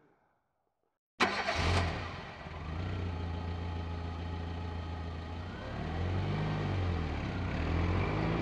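Near silence for about a second, then a car engine comes in suddenly and loudly and keeps running steadily, its pitch rising and falling a couple of times near the end.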